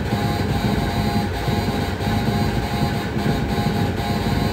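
Light-responsive homemade noise synthesiser (the OSC^n) putting out a dense, rumbling noise drone with high steady tones layered on top that cut in and out every half second or so, driven by Morse-code light flashes.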